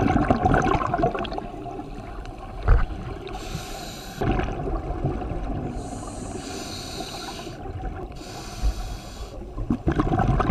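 Underwater sound of scuba divers breathing through their regulators: three hissing breaths of about a second each over a steady crackle and bubbling of water, with one sharp knock a little under three seconds in.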